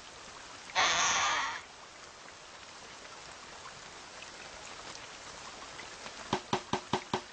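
Steady rain falling, with a short loud rush of noise about a second in. Near the end a run of sharp, evenly spaced taps begins, about five a second.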